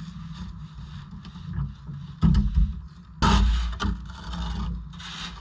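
An engine running steadily with a low rumble, broken by two loud rushing bursts about two and three seconds in.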